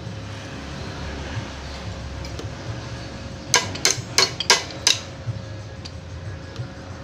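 Metal clinking: about six sharp knocks in quick succession a little past the middle, over a steady low hum.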